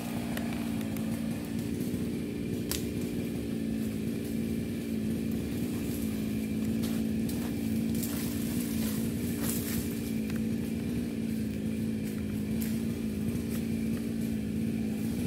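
Two-stroke chainsaw idling steadily, with a few faint clicks.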